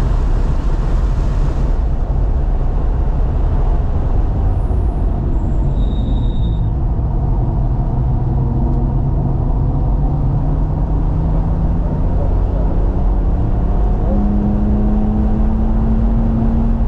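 In-cabin sound of a 2018 BMW M3 Competition (F80) lapping on track: a heavy low rumble of road and wind noise, with the twin-turbo inline-six's note rising steadily in pitch through the second half as the car accelerates.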